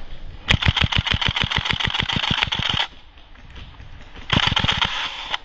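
Airsoft gun firing on full auto, about ten shots a second, in a long burst of over two seconds and then a second, shorter burst near the end.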